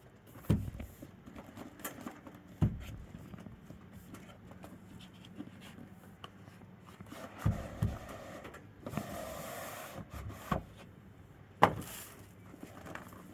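A keyboard and its packaging being handled: scattered knocks and thumps as things are picked up and set down, with about a second of rustling or sliding noise about nine seconds in and a sharp knock near the end.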